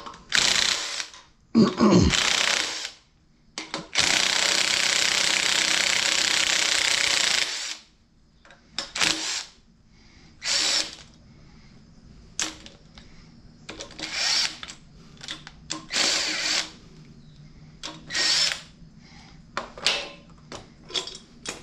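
Cordless drill turning a valve-relief flycutter in a piston: two short bursts, then one steady run of about three and a half seconds. After it comes a string of short knocks and rattles about every second or two as the tools and the cylinder head are handled.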